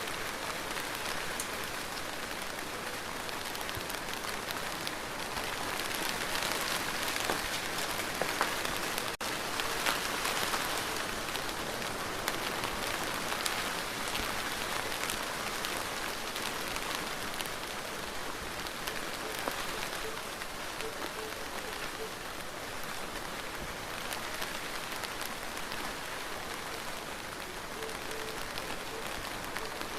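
Steady rain falling: an even hiss with many small drop ticks, swelling a little a few seconds in, with a split-second break about nine seconds in.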